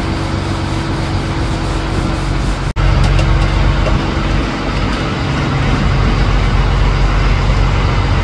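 Fishing boat's diesel engine running steadily, with wind and sea noise. About three seconds in, the sound drops out for an instant and comes back louder.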